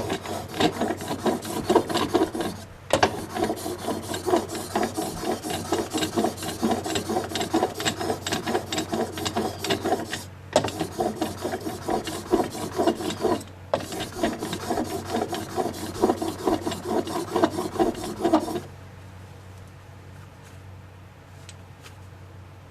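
Plane iron clamped in a roller honing jig, pushed back and forth under pressure on the fine side of an oiled sharpening stone to regrind its bevel: rapid gritty rubbing strokes, with brief pauses about 3, 10 and 14 seconds in, stopping shortly before the end.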